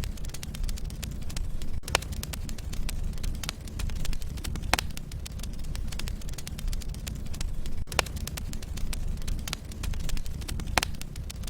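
Wood fire burning in a fireplace: logs crackling with many small ticks over a steady low rumble, and four louder sharp pops about three seconds apart.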